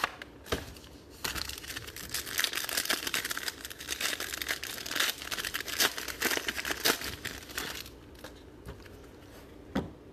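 A trading-card pack's shiny wrapper being torn open and crinkled by hand for several seconds, the crinkling dying down after about eight seconds. A single light knock near the end.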